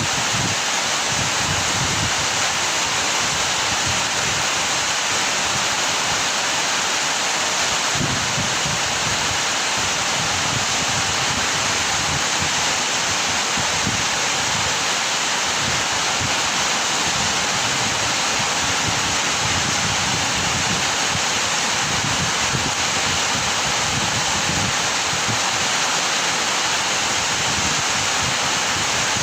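Heavy rain pouring down, a steady, unchanging hiss.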